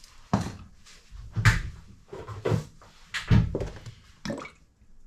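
Five knocks and thuds, about one a second, as kitchen items are handled on a worktop: a seasoning grinder set down and a glass olive-oil bottle picked up.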